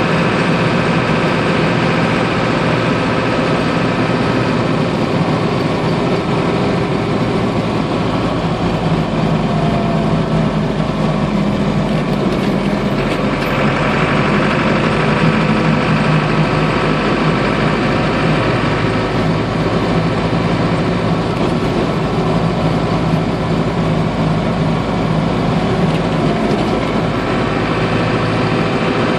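Land Rover Series 109 with a transplanted Defender Td5 turbo diesel running steadily on the move, heard from inside the cab as an even engine drone with road noise.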